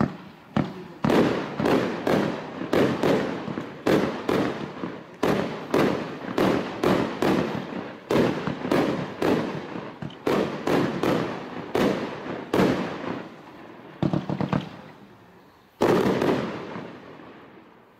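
Raccoon Fireworks 'Neon Boom' 500-gram consumer firework cake firing a rapid string of launches and bursting shells, several reports a second, for about thirteen seconds. A short cluster of quick pops comes near fourteen seconds in, and a last loud burst about sixteen seconds in dies away.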